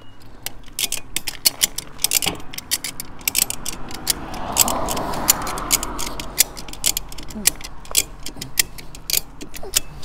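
Homemade hand winch made from a ratchet strap, its handle pumped back and forth so the steel pawl clicks over the spool's teeth in quick runs of sharp clicks, winding in rope under heavy load to drag a pickup truck.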